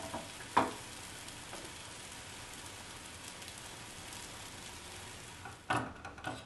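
Steady sizzling of food frying in pans on a gas stove: rice cooking down in milk and plantain slices frying in butter. A spatula knocks on the pan about half a second in, and near the end the spatula clatters against the pan and plate as the rice is served.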